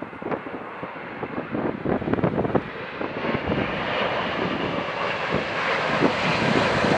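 Jet aircraft engines growing steadily louder as the plane approaches, with gusty wind buffeting the microphone in the first few seconds.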